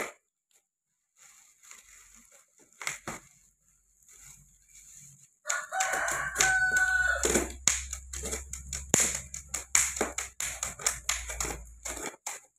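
A rooster crows once, about six seconds in, with a held, even-pitched call lasting about a second and a half. Under and after it come dense, sharp crackling clicks of a box cutter slicing through packing tape and cardboard, which stop about a second before the end.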